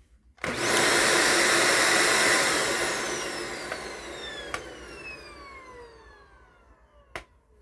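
Dyson DC18 Slim upright vacuum with a newly fitted motor switched on for a test run: it starts suddenly, runs loud and steady for about two seconds, then is switched off and its motor whine falls in pitch as it spins down over several seconds, ending with a sharp click.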